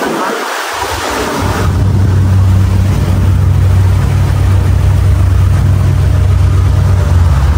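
Engine of a wooden water-taxi boat running steadily underway, a low, even drone that sets in about a second in. Water and wind rush over the first two seconds.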